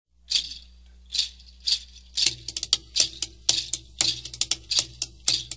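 Hand percussion playing a rhythm: a few spaced, crisp strokes, then from about two seconds in a quicker, denser pattern with a low tone sounding underneath.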